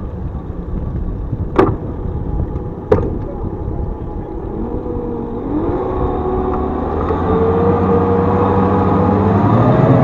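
Motorboat engine running and picking up speed: a whine rises in pitch about halfway through and then holds, and the engine grows steadily louder toward the end. Two sharp knocks, about a second and a half apart, come early.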